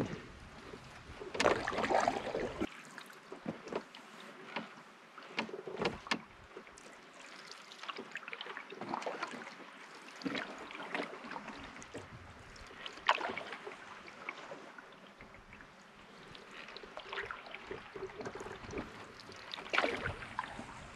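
Canoe paddle strokes in calm water: irregular splashes and drips every few seconds, the loudest about two seconds in.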